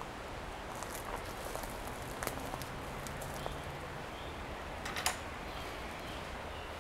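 Scattered, irregular light clicks and crackles over a steady outdoor background hiss, with the loudest click about five seconds in.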